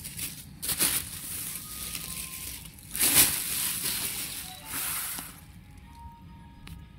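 Plastic shopping bags rustling and crinkling in bursts as they are handled, the loudest about three seconds in.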